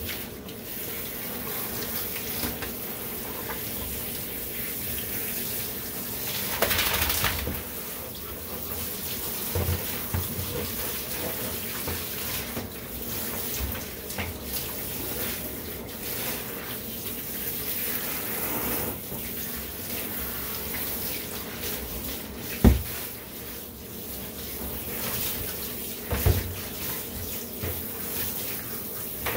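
Handheld shower head spraying water onto a wet dog's coat and into a bathtub, a steady hiss of running water. A sharp knock stands out about three-quarters of the way through, with a smaller one a few seconds later.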